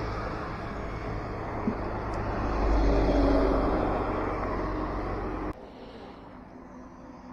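A truck passes on the road close by. The traffic noise swells to its loudest about three seconds in, eases off, and then drops off abruptly about five and a half seconds in.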